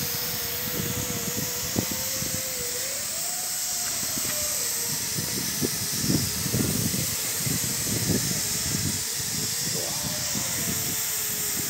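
Steady shipyard machinery noise: a loud, even hiss with a humming tone that wavers and rises twice before settling, over irregular low rumbling and a few knocks.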